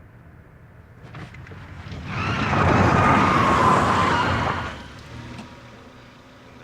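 A vehicle passing by: its noise swells up, peaks for a couple of seconds and fades away, with a slight fall in pitch as it goes.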